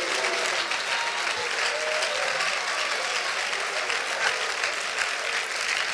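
Church congregation clapping steadily and loudly, with a few voices calling out among the claps.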